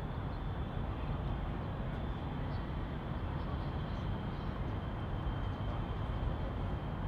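Steady outdoor city ambience: a low rumble with a thin, steady high-pitched tone running over it.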